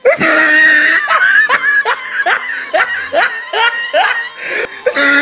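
A group of people laughing loudly, with quick repeated peals of laughter about three a second.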